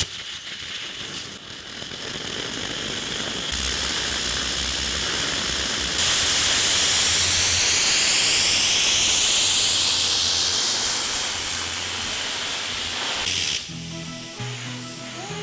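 Small air-fed rocket engine with a quartz-glass combustion chamber and a 6 mm graphite nozzle, firing with a loud, steady hiss. It builds in two steps, stays loudest for about four seconds, then tapers and cuts off near the end, where music takes over.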